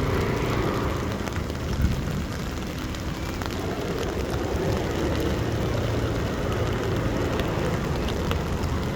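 Steady city street noise: a low traffic rumble with scattered small clicks.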